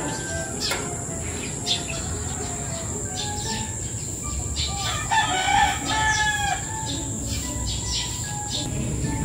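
Roosters crowing, loudest about five to six and a half seconds in, with many short chirps from small birds.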